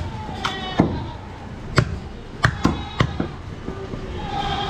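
Heavy cleaver chopping through goat ribs onto a wooden chopping block: about five sharp, irregular chops, two of them in quick succession a little past the middle.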